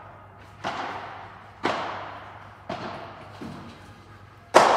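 Padel rally: the ball struck by rackets and bouncing about once a second, five sharp pops in all, each echoing in a large covered hall, the last and loudest near the end.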